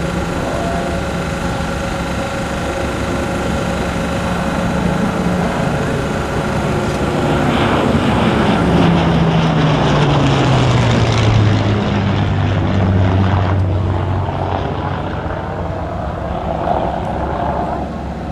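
Hawker Hurricane Mk IIc's Rolls-Royce Merlin V12 engine and propeller in a low flypast. The engine drone grows louder as the aircraft approaches, its pitch falls as it passes about halfway through, and it fades as the aircraft flies away.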